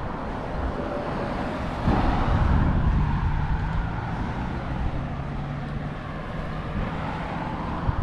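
Outdoor street traffic: a motor vehicle passes on the road, its engine hum swelling about two seconds in and holding steady for several seconds before easing off, over a low outdoor rumble.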